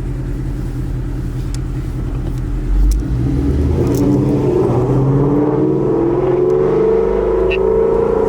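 Ford Mustang GT's Gen 2 5.0 Coyote V8, loud through newly fitted long-tube headers and Corsa exhaust, running steadily and then accelerating, its pitch climbing steadily from about four seconds in. A low thud comes near three seconds in.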